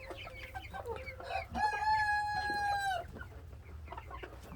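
Chickens clucking, and a rooster crows once about one and a half seconds in: a single long held call lasting over a second that drops in pitch as it ends.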